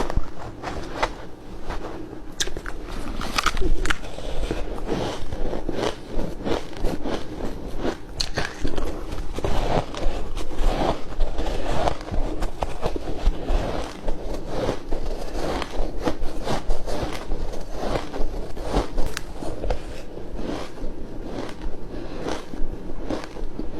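Flaky white ice being bitten and chewed: a dense, continuous run of crisp crunches and crackles.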